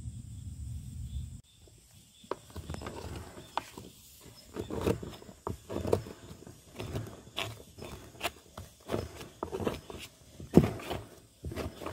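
Dried cake of homemade potato starch being broken up: irregular crunching cracks and knocks, after a low rumble in the first second or so.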